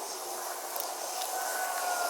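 Motor oil being poured from a bottle into the engine's oil filler, a steady pouring hiss with faint tones that slowly fall.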